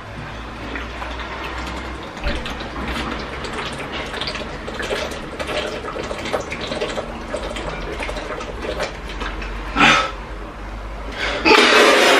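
Two people gulping water from plastic bottles: steady swallowing and gulping with small clicks and bottle crinkles. Near the end one of them sprays a mouthful of water out in a loud burst.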